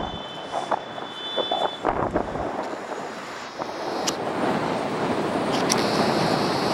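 Steady hum of city traffic heard from high above, with a few sharp clicks and a thin high tone during the first two seconds. The hum grows louder about four seconds in.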